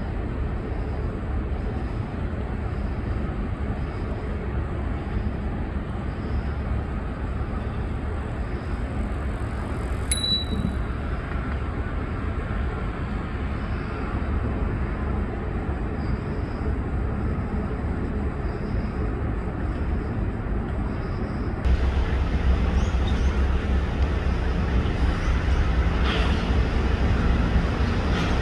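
Steady low rumble of harbour wharf ambience with the hum of ferry engines. The sound changes suddenly about two-thirds of the way through: the rumble gets louder and a steady engine drone comes up.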